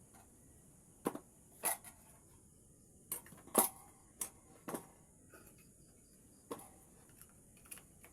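A series of irregular sharp clicks and knocks, about eight in all, the loudest a little past the middle, over a steady high chirring hiss.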